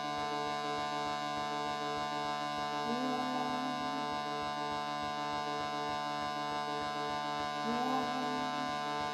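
Shruti box playing a steady, unchanging drone of several notes at once. A wordless voice joins it twice with a brief held note, about three seconds in and again near the end.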